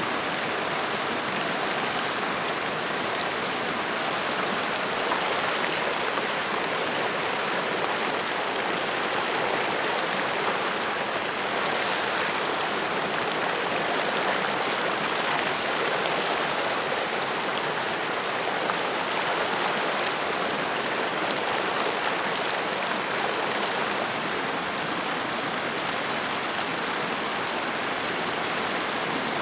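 River whitewater rushing steadily down rock ledges in a small falls, a continuous even roar of water.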